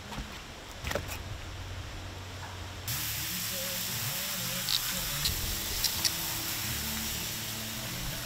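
A couple of light knocks about a second in. Then, about three seconds in, a garden hose spray nozzle starts suddenly, spraying water onto a plastic fish-cleaning board with a steady hiss.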